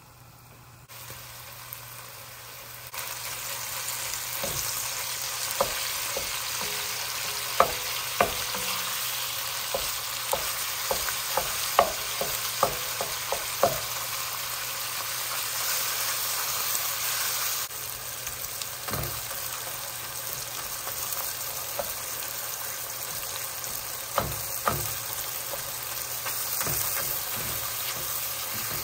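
Ground beef and sausage sizzling in an enameled Dutch oven while being broken up. The hiss starts faint about a second in and grows louder a couple of seconds later. A wooden spoon and a meat chopper knock against the pot, in a quick run of sharp knocks in the middle and a few more later on.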